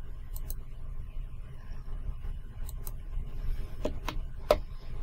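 Computer mouse clicks, about half a dozen short sharp clicks spread unevenly, the loudest about four and a half seconds in, over a steady low hum.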